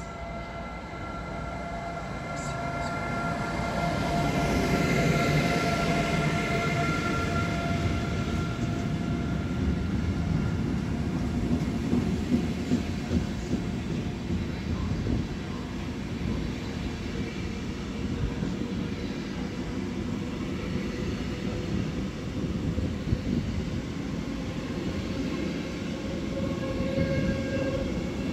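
Re 475 Siemens Vectron electric locomotive passing at speed with a steady whine, loudest about five seconds in. It is followed by a long intermodal freight train of pocket wagons carrying semi-trailers, rolling by with a continuous rumble and scattered clicks of wheels over the rails.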